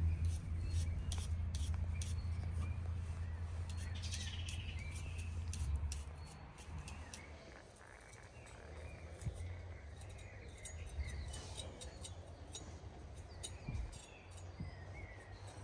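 Birds chirping outdoors, with scattered sharp clicks and a low rumble that fades out about six seconds in.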